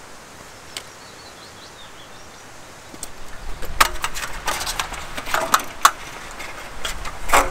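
A roll-up slatted camping tabletop clattering as it is pulled out and handled, a quick run of sharp knocks and rattles as the slats strike each other, starting about halfway through. Before that, faint bird chirps over quiet outdoor background.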